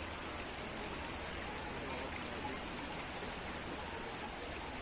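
Water of a forest river or stream flowing, a steady, even rush.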